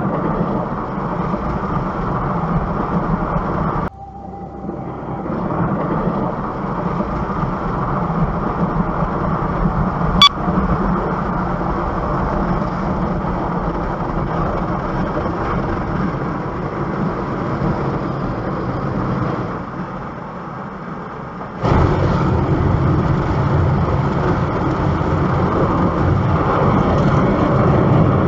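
Steady car noise, with sudden breaks about four seconds in and again around twenty seconds in, and a single sharp click about ten seconds in.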